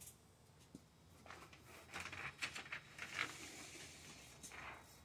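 Faint, irregular rustling and light scraping as a sheet of window tint film is pulled from its roll and handled.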